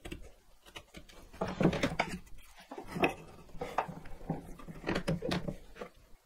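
Chisel work on a wooden bench: a steel bevel-edge chisel paring out the cheeks of a bridle joint, set down on the bench and the workpiece shifted. The result is a run of short scrapes and knocks, starting about a second and a half in and stopping shortly before the end.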